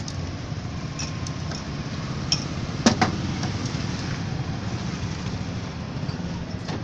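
Steady low rumble of street traffic and market background, with two sharp clinks close together about three seconds in as glass soda bottles are handled.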